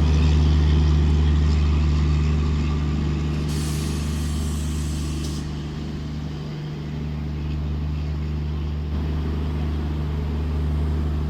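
Rajdhani Express train at the platform: a steady low machinery hum, with a hiss lasting about two seconds that starts about three and a half seconds in.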